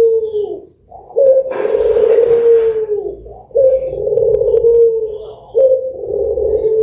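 A white puter dove (domestic collared dove) cooing: long, low, drawn-out coos repeated about every two seconds, three in a row after one fading at the start. A brief hiss sounds over the second coo.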